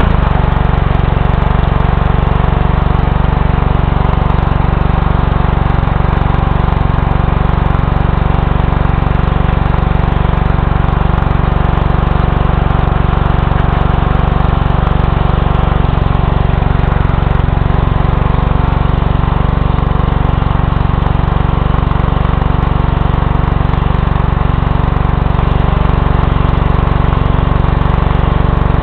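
Small flathead engine of a cheap Chinese gas pressure washer running steadily at constant speed while its wand sprays water onto concrete. Its owner says the engine doesn't run great.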